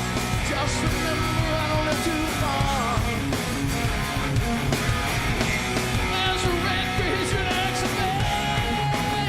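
Live rock band playing loudly: electric guitar over bass and drums, with notes that slide up and down in pitch.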